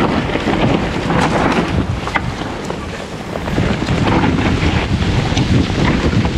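Wind rushing over the microphone of a mountain biker riding down a bike-park trail, with scattered clicks and rattles from the bike over the rough ground. The rush eases briefly about halfway through, then builds again.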